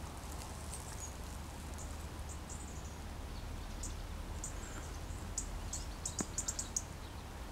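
Small birds giving short, high chirps, scattered at first and then several in quick succession near the end, over a low steady rumble.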